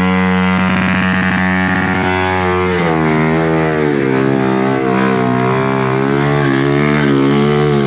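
Sport motorcycle engines held at high revs during smoky burnouts. A steady pulsing tone, about three seconds in, gives way to revs wavering up and down as the throttle is worked.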